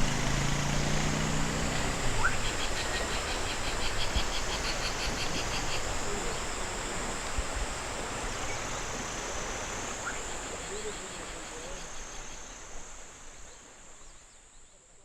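Outdoor ambience of insects buzzing steadily, with pulsing trills in the first few seconds, over a faint wash of distant traffic; it all fades out near the end.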